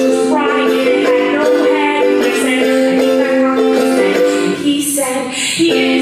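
A woman singing a song while strumming chords on a ukulele; the strummed chord breaks off briefly near the end before starting again.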